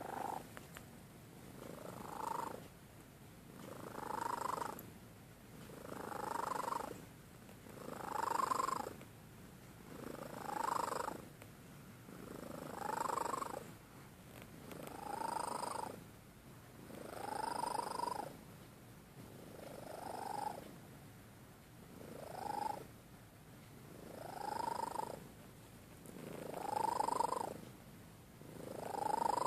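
A cat snoring in its sleep: a slow, regular run of breaths, about one every two and a half seconds, each rising in pitch toward its end.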